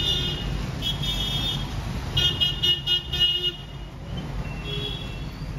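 Vehicle horn honking in traffic: a short honk, a longer one about a second in, then a quick run of short honks, over the low rumble of passing vehicles.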